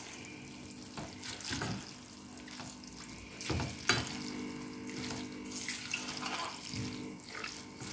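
Spatula stirring cooked macaroni with butter, milk and cheese powder in a stainless steel pot: irregular wet stirring strokes with occasional scrapes, over a faint steady hum.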